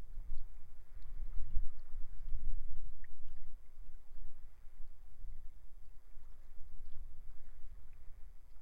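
Strong sea wind buffeting the microphone in a low, gusty rumble, heaviest about a second to three seconds in, over faint waves washing on the shore.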